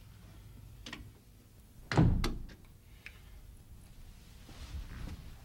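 Hotel room door thunking shut against its frame, with a sharp click right after, about two seconds in. A fainter knock comes about a second in.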